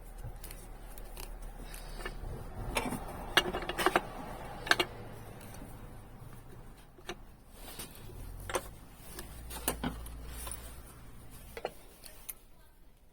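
Scattered sharp clicks and knocks over a low hum, busiest and loudest about three to five seconds in, with a few more later.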